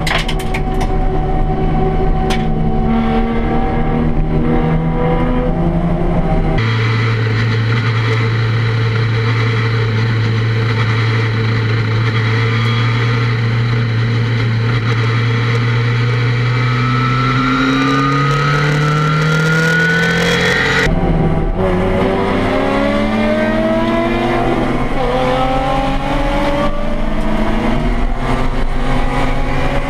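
Race car engines heard from inside the cockpit. First a Nissan 350Z running at low revs. After a cut, a Nissan Sentra race car's engine drones at steady revs that slowly climb. Then it is back to the 350Z accelerating, its revs rising in several pulls through the gears.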